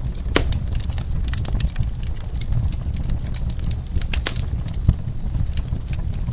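Wood fire crackling in a fireplace: irregular sharp pops and snaps over a steady low rumble, with a louder pop about half a second in and a cluster of pops a little past four seconds.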